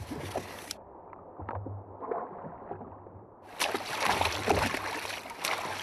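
Water sloshing and gurgling against a jet ski's hull. From about three and a half seconds in there are many short knocks and clunks of fishing gear being handled on the ski.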